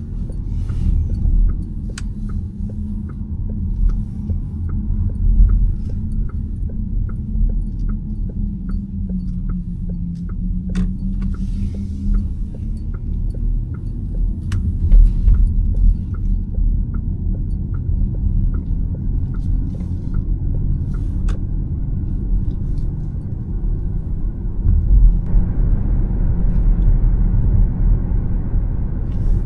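Škoda Elroq electric SUV at freeway speed: steady tyre and road rumble with a faint motor whine, over a regular light ticking. Near the end the road noise turns hissier and a little louder.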